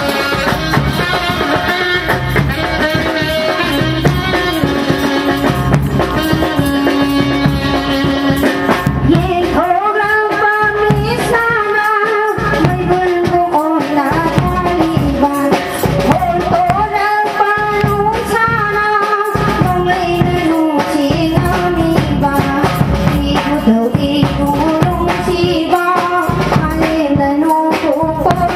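A Maibi priestess singing a Lai Haraoba ritual song into a microphone, amplified, over instrumental accompaniment with a steady drum beat.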